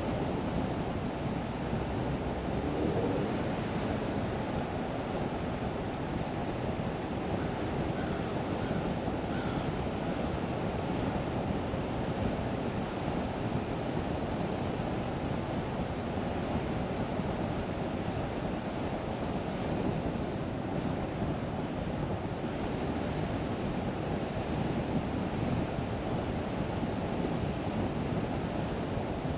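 Steady rushing tyre and wind noise from a car driving along the road.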